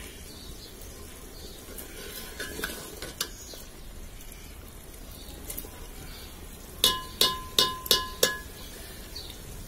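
Metal ladle stirring mutton curry in a metal pot, with soft scrapes and clinks, then five quick ringing taps of the ladle against the pot about seven seconds in.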